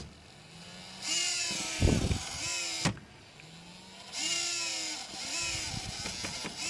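Nyko Intercooler cooling fan on a PS4 grinding with a wavering, warbling whine that comes in two spells, with a thump about two seconds in and a click about three seconds in as the unit is tapped. The owner takes the noise for a sign of a defective fan.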